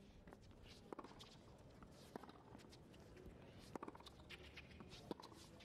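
Faint tennis rally on a hard court: a few sharp knocks of racquet strikes and ball bounces, a little over a second apart, with faint footwork of the players.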